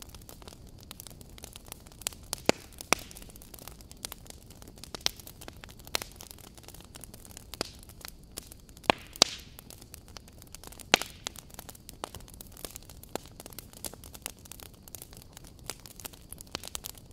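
Crackling fire: irregular sharp pops and snaps over a steady low hiss, with a few louder pops scattered among the small crackles.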